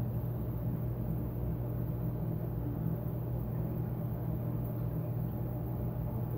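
Aquarium equipment humming steadily at a low pitch: the air pump driving the bubble curtain and the circulation pumps, with the bubbles as a light hiss underneath.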